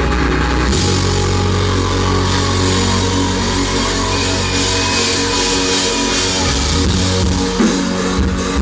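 Live country-rock band playing loud, with drums, bass and electric guitar, heavily distorted by an overloaded recording.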